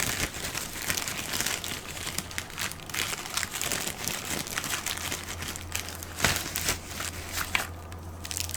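Paper and plastic wrapping crinkling and rustling as a bag of wrapped firework packs is rummaged through and handled, with many irregular crackles and clicks.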